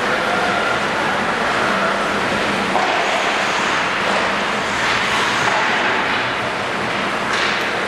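Indoor ice rink ambience: a steady hum under a wash of noise, with skates scraping on the ice.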